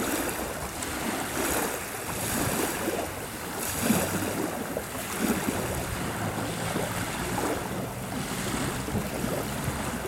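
Small river waves lapping and washing onto a sandy shore in soft, repeated swells, with a low rumble of wind on the microphone.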